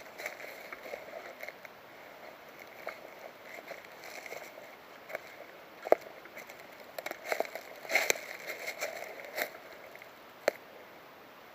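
Rustling and crunching with many small irregular clicks, typical of handling and movement noise picked up by a camera mounted on an airsoft gun. Two sharper single clicks or knocks come about six seconds in and again near the end.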